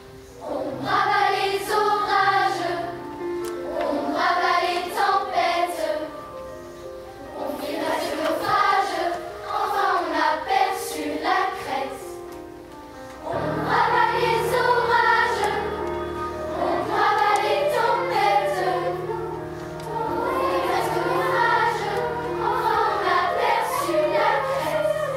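Children's choir singing phrases of a French operetta with accompaniment; low steady notes join about halfway through.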